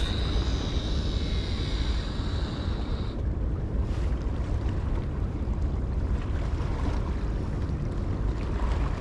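Wind rumbling on the microphone, with a high steady whirr from a multiplier fishing reel's spinning spool for the first three seconds that stops abruptly.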